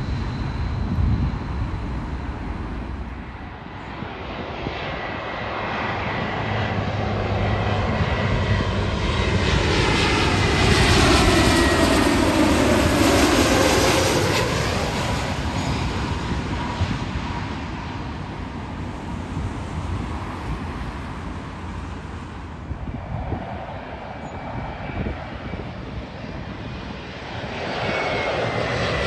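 Airbus A320-family jet airliner passing overhead on landing approach. The engine noise swells to its loudest about 11 to 14 seconds in, its tones sliding down in pitch as the aircraft goes by, then fades. The noise starts rising again near the end.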